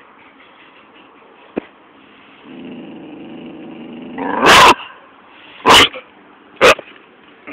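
Dog growling low for about two seconds, then barking three times, loudly and about a second apart; the first bark comes straight out of the growl and is the loudest.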